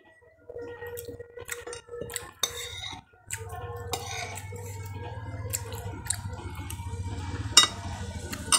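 Someone eating: short clicks and clinks of a spoon against a plate, with mouth sounds of chewing. A low steady hum comes in after about three seconds, and one sharper clink stands out near the end.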